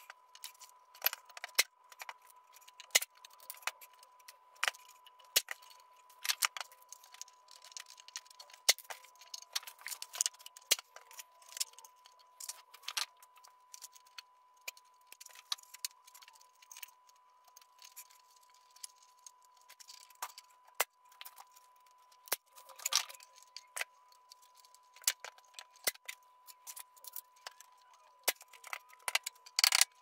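Irregular small clicks, taps and light rattles of hands handling wires, cables and cable ties while wiring a limit switch.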